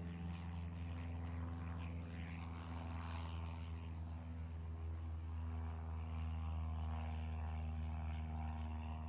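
Small propeller plane flying past, its engine a steady drone.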